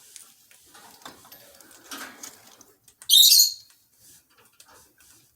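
A budgerigar gives one loud, short, high-pitched chirp about three seconds in, after faint rustling.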